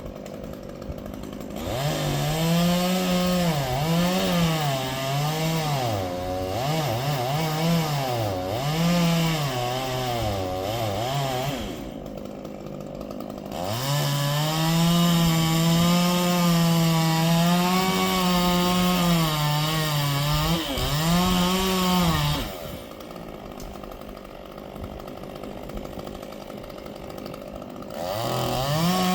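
Two-stroke chainsaw revving up and cutting wood, its engine pitch wavering and dipping under load, then dropping back to idle about 12 seconds in. It revs and cuts again, dropping back to idle a little over 20 seconds in, and revs up once more near the end.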